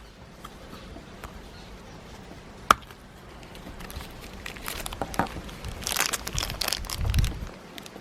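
Plastic packaging crinkling and tearing as it is handled, with one sharp click about two and a half seconds in and a louder run of crinkling in the second half.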